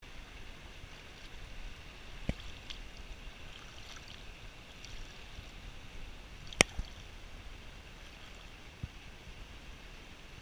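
Rubber waders shifting in shallow stream water, with faint sloshing and a few sharp knocks, the loudest about two-thirds of the way through.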